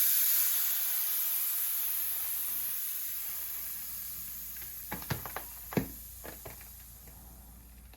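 Air hissing out of a bicycle tire through its valve as it is deflated, loud at first and fading steadily as the pressure drops. A few light clicks about five to six seconds in.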